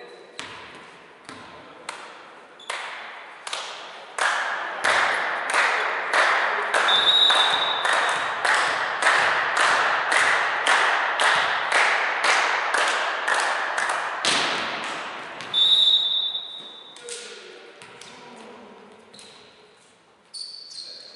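Rhythmic clapping in a sports hall, about two claps a second, swelling to its loudest in the middle and fading out near the end, with two short, high whistle blasts.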